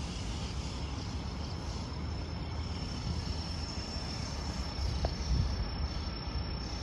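Outdoor city ambience at night: a steady low rumble of distant road traffic, with a thin steady high-pitched tone above it.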